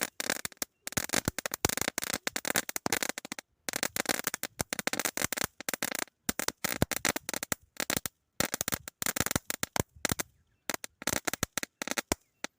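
A 1000-wala string of firecrackers going off in a fast, dense chatter of sharp bangs, broken by a few brief pauses, then thinning to scattered pops and stopping near the end.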